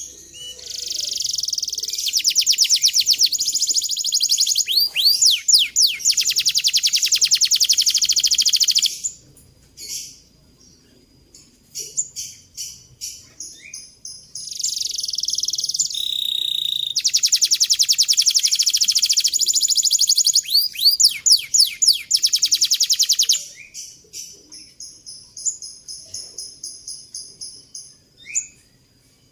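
Canary singing: two long, fast, high-pitched trilled rolls lasting several seconds each, with shorter chirps, single notes and quick sweeping notes between them.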